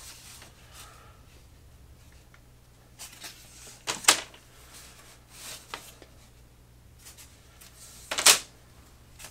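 Flat sheets of laser-cut wooden kit parts being handled and shuffled, giving a few brief rustles and knocks of thin wood. The loudest comes near the end.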